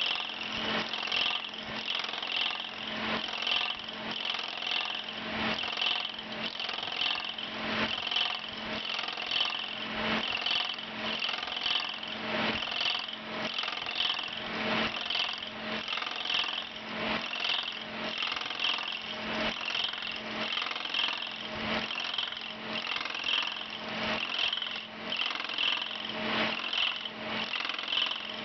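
Ober No. 11 copy lathe's spinning cutterhead cutting a hickory axe-handle blank as it turns, a steady machine whir and chipping with a regular pulsing beat.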